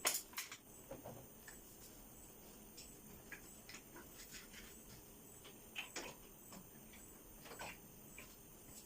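Scattered faint metallic clicks and knocks of motorcycle parts and hand tools being handled during handlebar refitting, the loudest knock right at the start.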